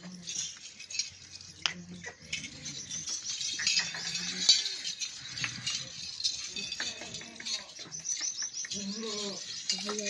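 Small birds chirping busily, with scattered sharp clicks and a short low call about nine seconds in.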